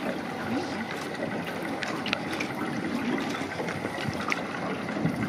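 Water sloshing around a small tour boat on a river, with wind on the microphone: a steady rushing noise with a few faint ticks.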